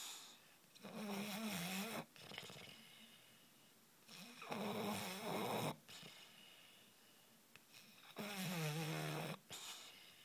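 Snoring: three snores, each about a second long, coming about every four seconds, with quieter breathing between them.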